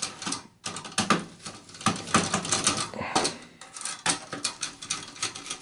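Screwdriver turning out the processor heatsink screws on a Dell OptiPlex 9010's motherboard: a quick, irregular run of light metallic clicks and scrapes.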